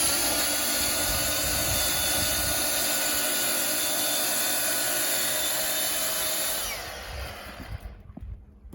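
Ego battery multitool with a bristle brush attachment running on a tennis court surface: a steady electric motor whine over the dense noise of the spinning brush, which winds down and stops about seven seconds in.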